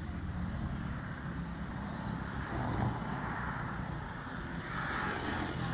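Road traffic noise from a passing vehicle, its sound swelling about halfway through and again near the end.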